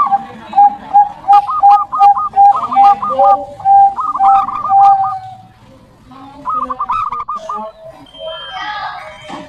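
Caged zebra dove (perkutut) cooing: a rapid run of short coo notes with quavering higher notes over them, ending in a couple of longer coos about five seconds in. After a brief pause, a few shorter phrases follow near the end.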